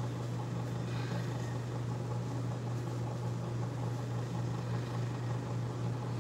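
A steady low hum that holds one pitch throughout, like a running fan or appliance motor, over faint room noise.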